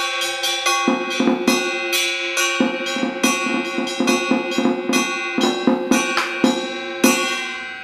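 Fast stick drumming on a Vietnamese trống chiến (battle drum), several strikes a second, with a metal percussion piece ringing on under the strokes. The deeper drum-head beats come in about a second in, and the playing stops with a last hard strike near the end.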